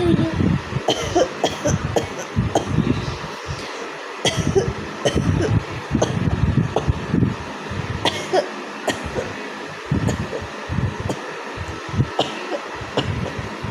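A woman coughing and clearing her throat in many short, irregular bursts.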